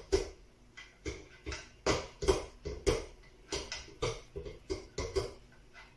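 Wooden pedestal table base being rocked on a ceramic tile floor, its feet and adjusters knocking on the tiles in a string of short knocks about twice a second, unevenly spaced: the base is being checked for wobble to see that it sits level.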